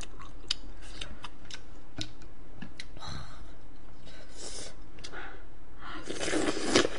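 Close-miked eating sounds: a run of sharp chewing and utensil clicks, then chopsticks and a spoon scooping saucy food from a serving bowl, with a louder, noisy burst near the end as a spoonful goes into the mouth.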